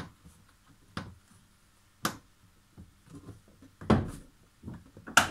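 About five sharp clicks and knocks, a second or so apart, of a plastic car door trim panel being handled and pried at its clips, the loudest near the end.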